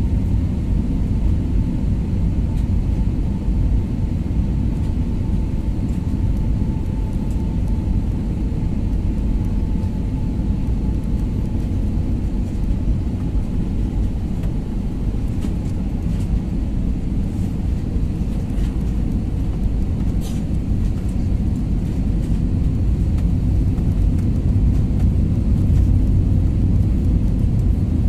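Steady jet airliner cabin noise during the landing approach: a low rumble of engines and airflow heard from inside the cabin, with a faint whine that slowly drops in pitch over the first ten seconds or so.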